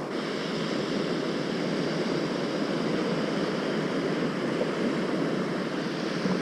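Small waves breaking and washing up a sandy beach: a steady, even hiss of surf.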